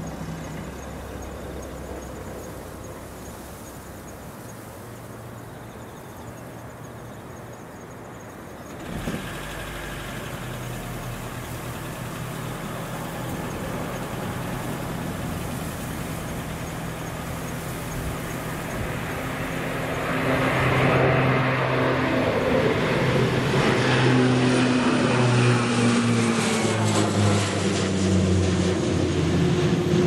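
Jet airliner on approach, its engine noise building steadily and getting much louder past the middle, with the engine whine sliding down in pitch as it passes.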